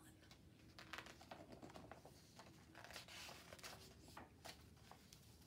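Near silence with faint paper rustling and a few soft ticks as a picture book's pages are turned.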